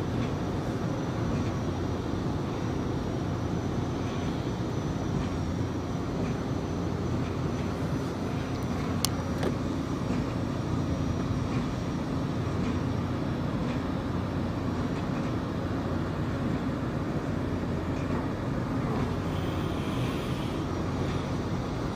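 Sightseeing boat running steadily under engine on the harbour, an even low drone with a constant rush of water and air noise and a faint high whine above it.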